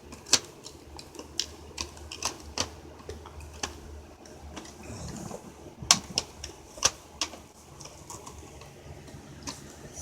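Irregular sharp plastic clicks and taps from smoke alarms and their mounting bases being handled, about a dozen in all, with the loudest near six seconds in. A low steady hum runs underneath.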